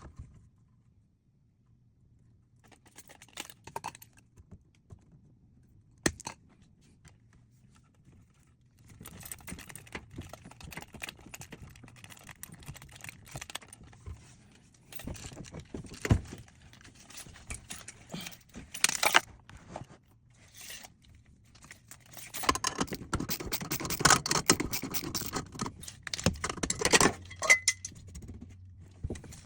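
Tools and metal hardware being handled: scattered clicks, then a long run of irregular rattling, clinking and scraping that grows busiest near the end.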